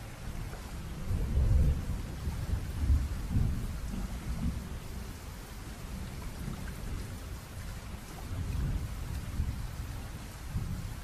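Steady rain with rolling thunder, the low rumbles swelling and fading several times. The loudest rumbles come in the first few seconds.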